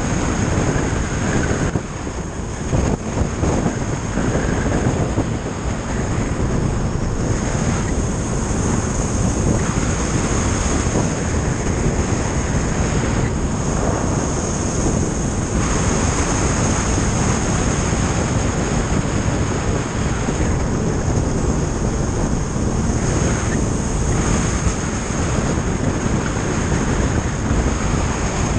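Steady wind rush buffeting a camera mounted on a motorcycle at road speed, with the bike's engine and tyre noise running underneath.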